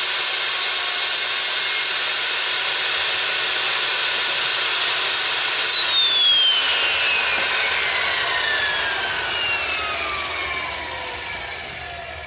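An electric power tool motor comes on abruptly and runs at a steady high whine with a hissing rush for about six seconds, then is switched off and winds down, its pitch falling steadily as it fades.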